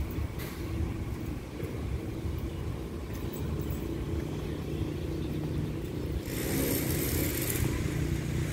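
Low, steady rumble of a diesel train engine as the train pulls away from the platform. A hiss joins it about six seconds in.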